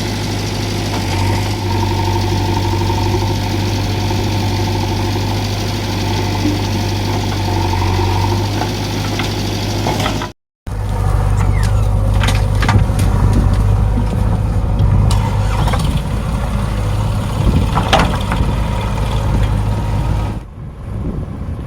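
Diesel engine of a JCB 3DX backhoe loader running steadily at work. The sound breaks off briefly a little before halfway, then the engine carries on under scattered sharp knocks and clanks.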